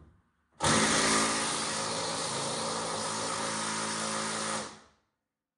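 Harbor Freight Earthquake 20-volt cordless impact wrench hammering on a seat mounting bolt. It starts suddenly about half a second in and runs steadily for about four seconds before stopping. It fails to break the bolt loose.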